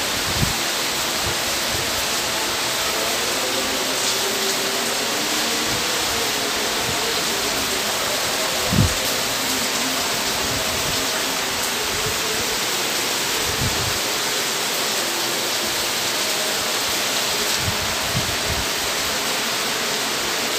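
Steady heavy downpour of cyclone rain with wind. A few brief gusts buffet the microphone, the strongest about nine seconds in and again around fourteen seconds.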